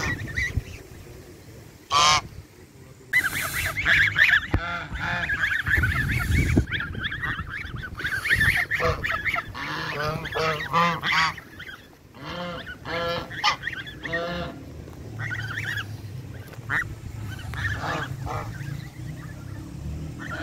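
A flock of domestic geese honking, many repeated calls overlapping, densest and loudest in the first half. There is a brief low rumble about six seconds in.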